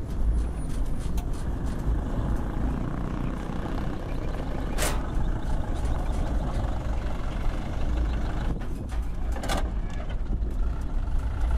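Diesel engine of a Mitsubishi Fuso Colt Diesel truck loaded with concrete electric poles, running steadily as the truck crawls through deep mud ruts: a continuous low rumble. Two short hisses come through, about five and nine and a half seconds in.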